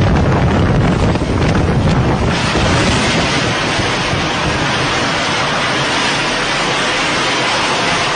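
Strong wind buffeting the microphone, with a heavy low rumble for the first two seconds or so, then a steady rushing noise.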